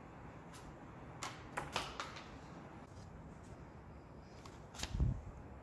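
Quiet room tone with a few light clicks, then a low thump about five seconds in: handling noise from a hand-held phone as a tubular paper airplane is thrown.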